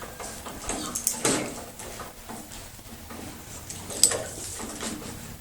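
Horse being groomed: a short rustling burst about a second in and a single sharp click about four seconds in.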